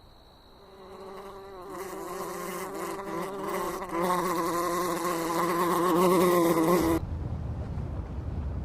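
Insect-like buzzing drone from wings, wavering in pitch and growing louder over several seconds, then cutting off suddenly about seven seconds in. Low rumbling noise follows.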